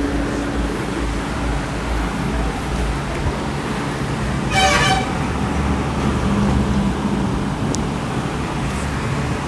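Steady background noise of road traffic, with one short vehicle horn toot about halfway through.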